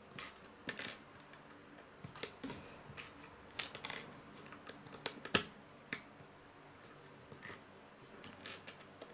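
Small plastic Lego plates and bricks clicking against each other and tapping on a wooden tabletop as they are picked up, placed and pressed together. The sharp clicks are irregular, some coming two or three in quick succession.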